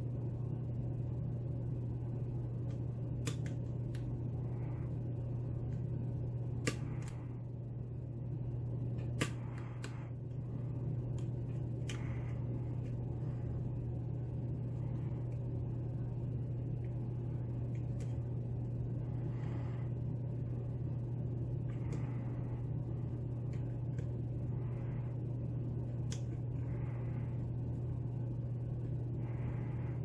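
Faint, scattered metallic clicks and ticks from a lock pick and tension wrench working the pins of a Falcon mortise lock cylinder, a handful spread over the stretch, over a steady low hum.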